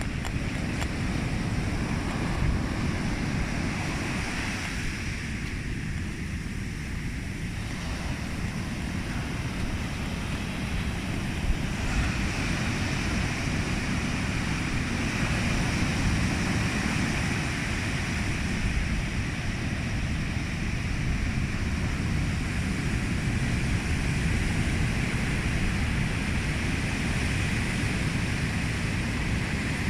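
Steady rushing of surf with wind buffeting the microphone.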